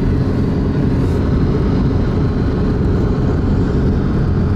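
Steady low drone of a car travelling on a highway: road and engine noise with no sudden events.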